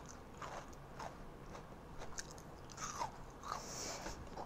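Mouth chewing a kohakutou, an agar jelly candy with a crystallized sugar crust: a handful of faint, crisp crunches as the sugary shell breaks between the teeth.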